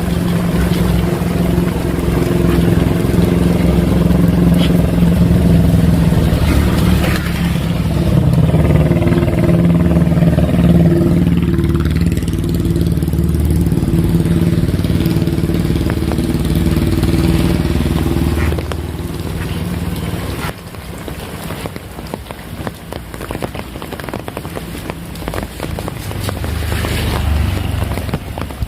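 A small engine running steadily with a low hum over heavy rain. It drops away about two-thirds of the way through, leaving rain falling on surfaces.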